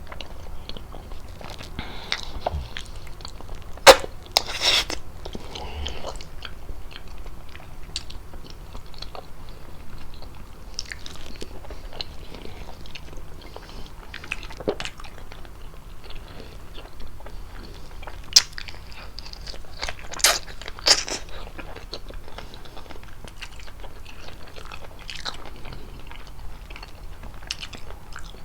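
Close-miked eating of fettuccine with chicken: wet chewing and mouth smacks, with sharp clicks now and then, the loudest about four seconds in and again around twenty seconds in. A low steady hum lies underneath.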